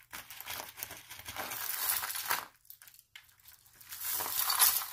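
Metal necklace chains and costume-jewelry pieces clinking and rattling against each other as a tangled pile is handled, with a brief lull about two and a half seconds in.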